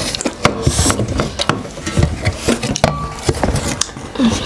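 Close-up eating sounds: irregular lip smacking, sucking and slurping, with quick clicks and taps of hands on plates.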